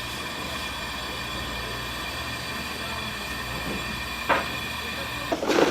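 Steady machine hum of shop equipment with several held tones. A brief splash comes about four seconds in, and a louder rush of water starts near the end.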